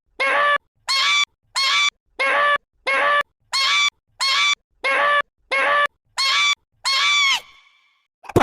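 A cartoon girl's high-pitched hiccup, repeated about a dozen times at an even pace of roughly three every two seconds. Each hiccup is short and dips in pitch at its end, and the last one trails off.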